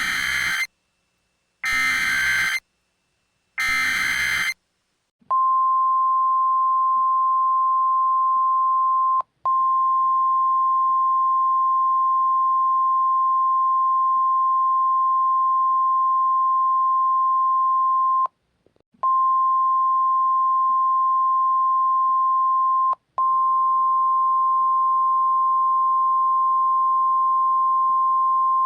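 Emergency Alert System SAME header: screeching digital data bursts about a second long, the last ending about four and a half seconds in. From about five seconds in comes the steady single NOAA Weather Radio 1050 Hz warning alarm tone, with three brief dropouts.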